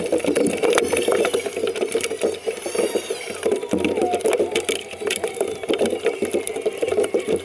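Racing tunnel boat's Mercury outboard engine idling, a steady rapid rattling clatter as the boat moves off at low speed.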